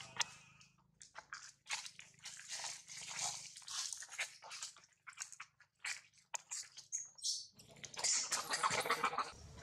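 Irregular faint crackling and rustling, thickest and loudest about eight to nine seconds in, with a brief high squeak-like sound about seven seconds in.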